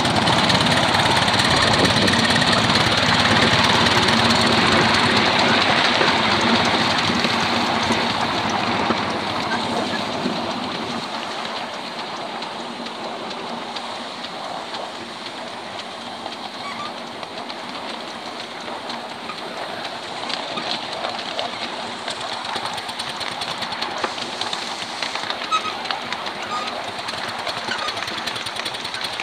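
7¼-inch gauge miniature steam locomotive, a model of an LMS Duchess Pacific, running under steam with rhythmic exhaust beats and the rattle of its running gear. Loud for the first several seconds, then easing to a lower steady level with occasional sharp ticks.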